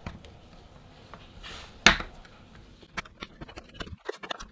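Plastic clicks and knocks from a Groov-e soundbar's plastic casing being pried and handled with a metal pry tool. There is one sharp snap about two seconds in, then a run of lighter clicks near the end.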